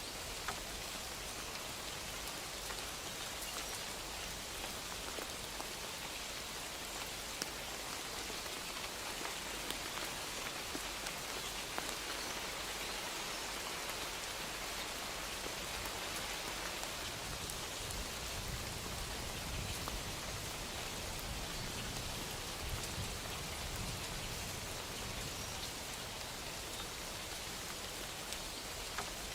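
Steady soft rain falling: a dense, even patter with occasional single drop ticks standing out.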